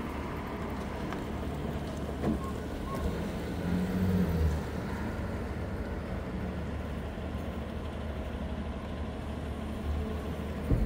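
Fire chief's red pickup truck pulling away and driving off, its engine noise over a steady low rumble, with a brief louder swell about four seconds in. No siren is heard.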